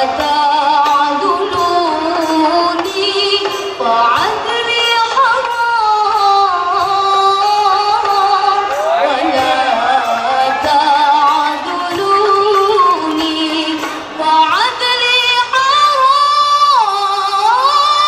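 Lead singer of a girls' marawis group singing an ornamented devotional melody through a microphone and stage speakers, holding long notes and sliding between pitches.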